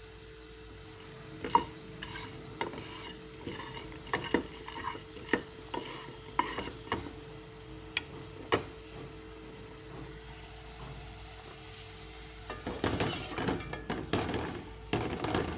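Whole spices (seeds, peppercorns, cloves, dried red chilies) being dry-roasted in a pan and stirred with a spoon. Scattered clicks and scrapes come through the first half, then a denser run of stirring and rattling near the end.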